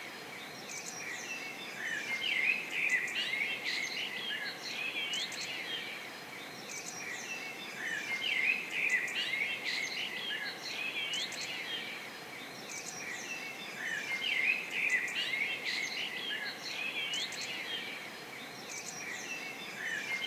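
Many small birds chirping and twittering over a faint steady hiss, as in a nature-ambience track. The chirping grows busier and louder about every six seconds, then eases.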